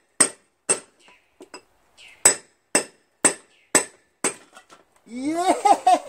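Small sledgehammer striking a cold chisel against the rusted steel hub of a lawn tractor rear wheel seized on the transaxle axle: sharp ringing metal strikes about two a second, with a short stretch of lighter taps after the first two, stopping about four and a half seconds in. Then a man's drawn-out shout of "yeah" as the wheel comes free.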